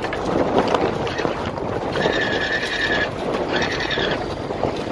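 Wind and water rushing aboard a sailboat under sail, with a steady high-pitched squeal held for about a second, twice, a couple of seconds in.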